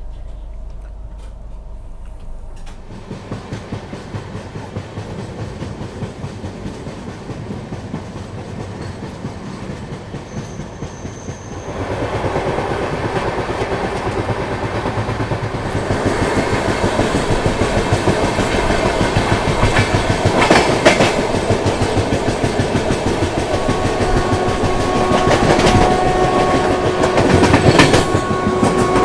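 Train running on the track, its wheels clattering rhythmically over the rail joints. The noise gets louder about twelve seconds in. About twenty-three seconds in, the locomotive horn sounds one long steady note that is held to the end.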